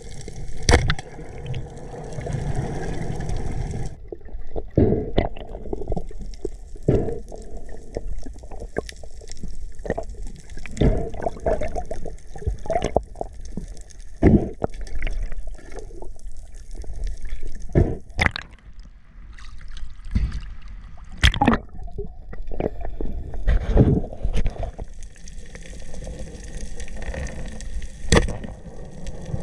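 Water sloshing and gurgling, broken by many irregular sharp knocks and splashes.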